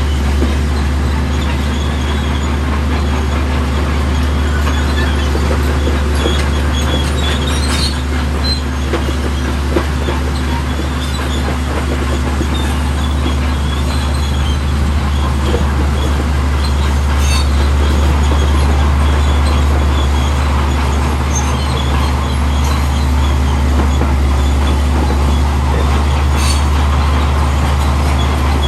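Komatsu D65E crawler bulldozer running steadily, its diesel engine humming low and even, with scattered high squeaks and occasional sharp clicks from the steel tracks.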